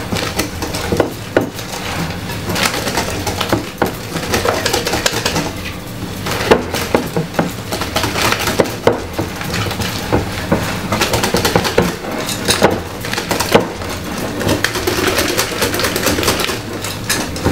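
Hand whisk clinking and scraping against a mixing bowl in quick, irregular strokes as flour is mixed into cake batter, over a steady low hum.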